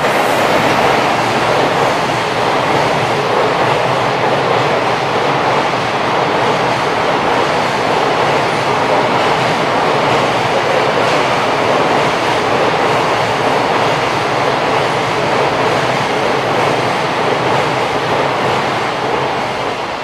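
JR Freight container train hauled by an EF210 electric locomotive passing through a station: a loud, steady rumble and rattle of the wagons' wheels on the rails.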